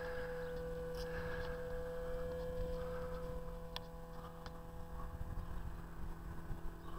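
Electric drive of a power retractable car door running with a faint, steady whir as the door slides forward out of the quarter panel to close, with a few light clicks.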